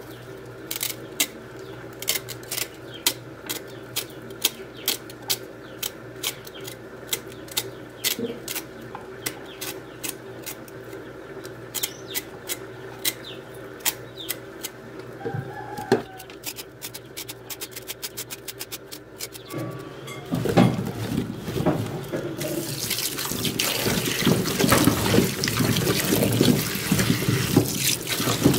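Kitchen knife cutting the stems and scraping the spines off maxixe (West Indian gherkins) over a stainless steel sink, with a short sharp click at each stroke, about two a second. About twenty seconds in, the tap is turned on and water runs over the gherkins in the sink as they are rubbed clean.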